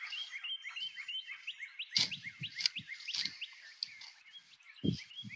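Footsteps crunching through dry grass and fallen leaves, several steps with the loudest near the end. Behind them runs a steady chorus of short, high, rising chirps.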